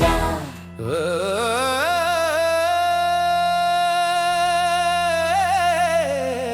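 Music: one long wordless sung note that glides up, holds steady with a slight waver, then falls away near the end, over a steady low drone.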